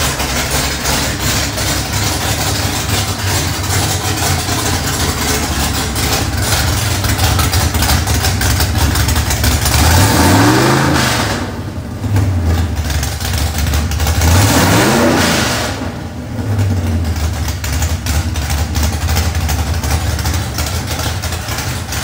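Dart-block 427 Ford small-block V8 with a Holley Hi-Ram intake and Terminator X fuel injection, running on an engine dyno through its headers. It idles steadily, with two quick throttle blips that rise and fall in pitch about ten and fourteen seconds in.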